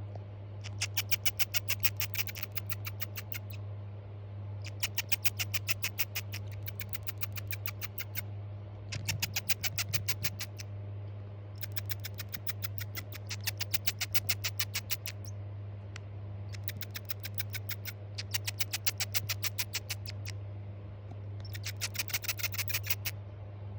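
Baby African dormouse calling in repeated bouts of rapid chirping clicks, each bout lasting two to three seconds with short pauses between, about six bouts in all. A steady low hum runs underneath.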